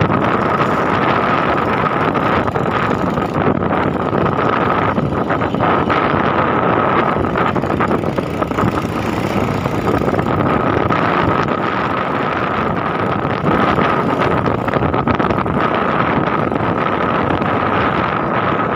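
Motorcycle under way: its engine running steadily under heavy wind rush on the microphone, with a steady thin whine on top.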